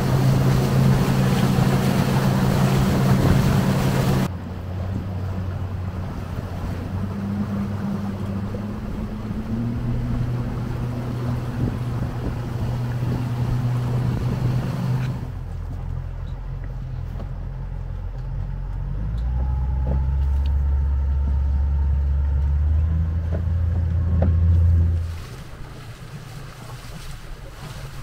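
Outboard motor of a river boat running steadily under way, with wind and water rushing past, loudest in the first four seconds. The engine's pitch and loudness shift abruptly about four and fifteen seconds in. A deeper drone swells in the back half and drops away a few seconds before the end.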